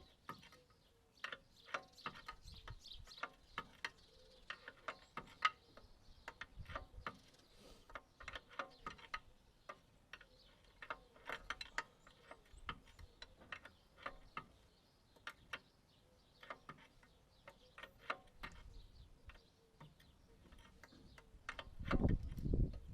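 Ratchet spanner clicking in short, irregular runs as a threaded part of the mini digger's track tensioner is wound in. A louder knock and handling noise comes near the end.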